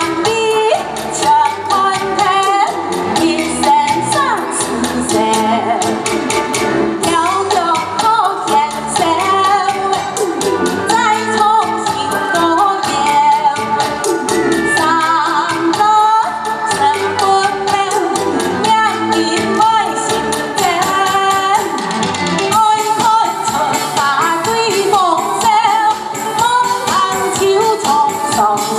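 A woman singing a Hakka pop song into a microphone over loud amplified backing music with a steady, fast beat.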